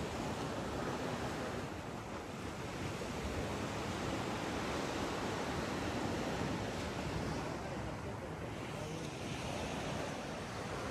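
Sea waves washing on the shore below, a steady, even rush of surf mixed with some wind.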